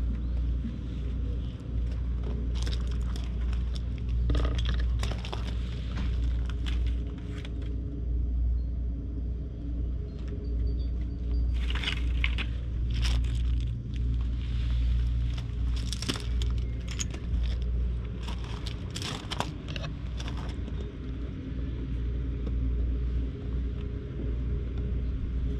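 A steady low engine drone runs throughout. Scattered clicks, crackles and rustles close to the microphone come and go over it, thickest in a few clusters through the middle.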